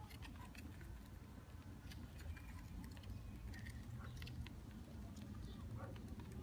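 Faint, irregular scratching and light ticking of a Jerusalem cricket's legs scrabbling against the plastic dust cup of a Shark Navigator vacuum cleaner, over a low steady hum.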